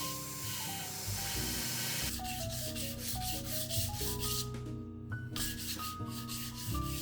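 Background music: a melody of changing notes over a fast, even, hissy shaker-like rhythm that drops out briefly near five seconds.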